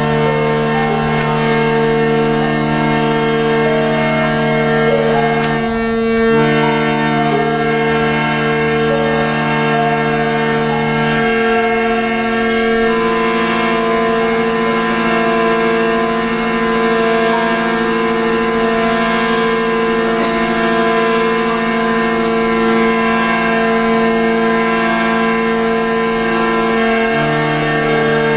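Indian harmonium, a hand-pumped reed organ, holding loud sustained drone chords. The notes shift a few times, about six, eleven and thirteen seconds in and again near the end.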